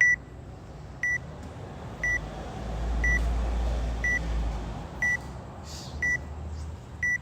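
An electronic timer beeping once a second with short high beeps, about eight in all. A low rumble swells up in the middle and fades again.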